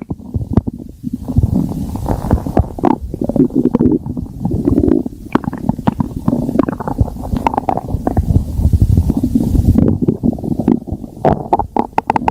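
Stomach growling loudly: continuous low gurgles broken by many quick, irregular bubbling pops.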